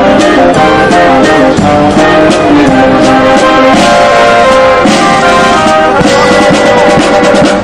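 Live brass band playing loudly: trombones, saxophone and trumpets sounding held notes and chords that shift every second or so.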